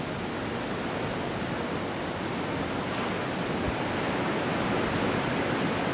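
Steady rushing of strong wind through palm trees and across the microphone, with a low buffeting rumble, building slightly toward the end.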